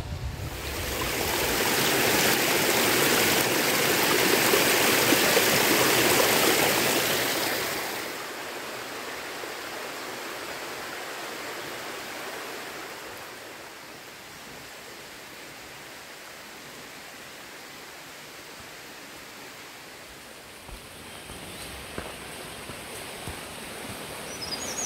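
Steady rush of flowing water, loud for the first eight seconds or so, then dropping to a quieter, even hiss.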